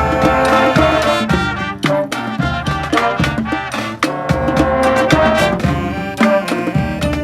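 A street brass band playing: horns sounding over a beating drum line.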